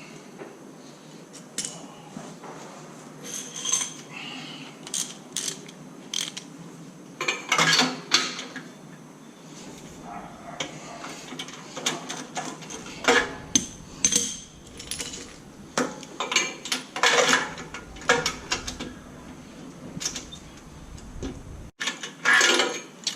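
Metal hand tools clinking and scraping while a spark plug is changed: a plug spanner and ratchet being fitted and worked, with scattered sharp clicks and knocks.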